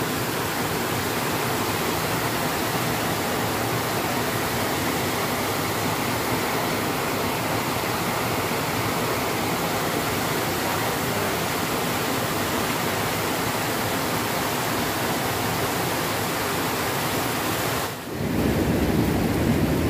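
Steady rush of a small waterfall pouring over a stone weir into a river pool. Near the end it drops out for a moment and comes back with more low rumble.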